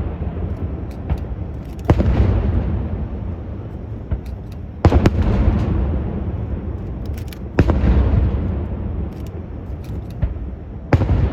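Aerial firework shells bursting: four heavy booms about three seconds apart, each trailing off in a long rolling rumble, with smaller sharp pops and crackles between them.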